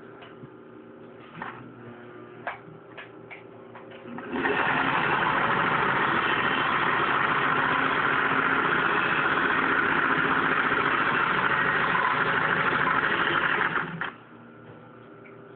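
Singer Rocketeer (500A) sewing machine sewing a zigzag stitch, running at a steady speed for about ten seconds before stopping abruptly. It is preceded by a few light clicks.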